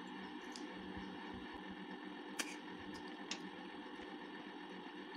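Steady low hum and hiss of room tone, with two faint short clicks about two and a half and three and a half seconds in.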